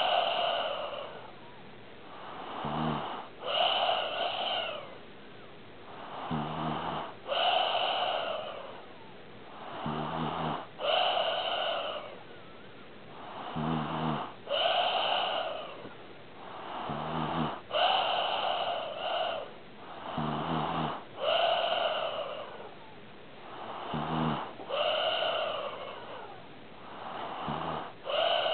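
A sleeping pet snoring in a steady rhythm, about one breath every three and a half seconds. Each breath is a short, low buzzing snore followed by a longer, higher, airy rasp, which is the loudest part of each cycle.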